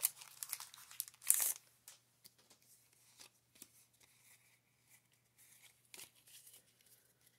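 Trading cards and their packaging being handled: a short crinkling rustle about a second in, then soft scattered clicks and rustles as a stack of Pokémon cards is taken up and sorted.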